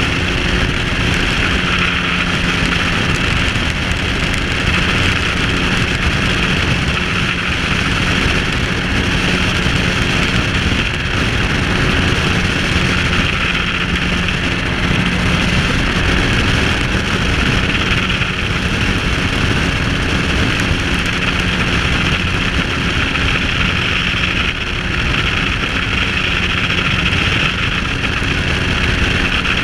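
Microlight aircraft engine running steadily at cruise, mixed with strong wind rushing over the microphone.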